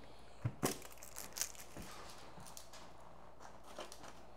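Faint crinkling and a few light knocks, about half a second to a second and a half in, as food packaging and rubbish are handled and pushed into a full trash can.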